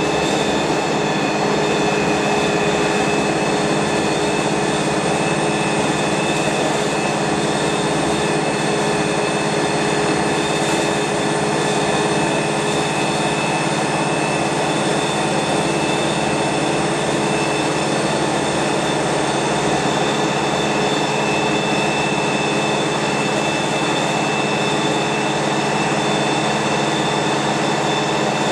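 Wright StreetLite single-deck bus's engine and drivetrain heard from inside the passenger saloon while the bus is under way: a steady drone with several steady whining tones over it.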